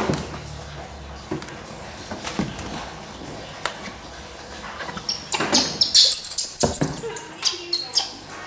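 Baby monkey squealing: a run of loud, very high-pitched arching squeals starting about five seconds in, after a few faint clicks and knocks.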